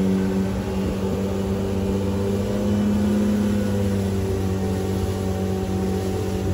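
Suzuki four-stroke outboard motor running steadily at high throttle, pushing the barge up to speed, heard from inside the wheelhouse.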